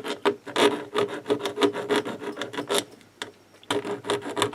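Small hand file rasping along the metal edge of a model locomotive chassis in quick short strokes, smoothing it down. The strokes pause briefly about three seconds in, then start again.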